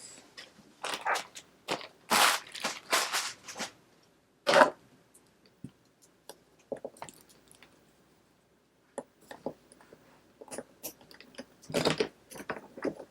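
Packaging paper and wrapping crinkling and crunching in irregular bursts as unboxing debris is gathered up, with scattered small clicks and taps between.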